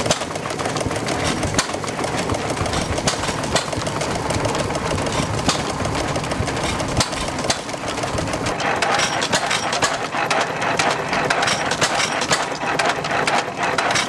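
Small stationary gasoline engine running and driving a stone grist mill by flat belt, a steady dense mechanical clatter as the mill grinds grain into meal.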